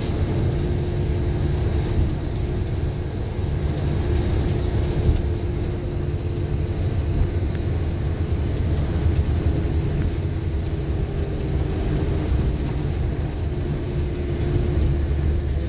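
Steady low rumble of road and engine noise inside a moving vehicle's cabin, with a faint steady hum above it.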